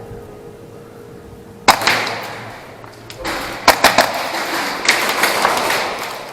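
Airsoft skirmish noise: a sharp crack a little under two seconds in that trails off in a rush of noise, then from about halfway a run of further cracks and clicks over continuous rustling noise, typical of airsoft shots and BB impacts amid players moving.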